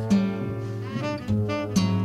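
Song's instrumental accompaniment between sung lines: plucked string instruments holding steady notes over a low bass line, with a new note struck a few times.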